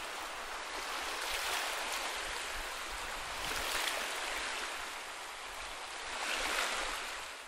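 Sea waves washing onto a beach, swelling and fading three times.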